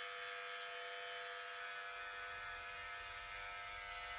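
OVLUX cordless electric hair clipper running unloaded, a steady, even hum, very quiet.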